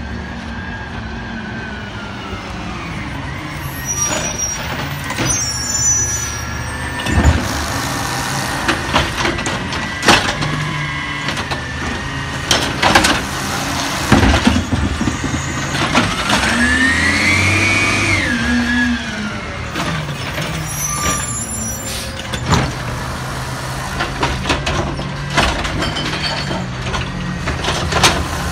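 A Peterbilt 320 automated side-loader garbage truck, running on compressed natural gas, working a recycling pickup. The engine runs and revs, rising and falling in pitch about halfway through, to drive the hydraulic arm that lifts the cart. Air brakes hiss, and the cart and arm make repeated knocks and bangs.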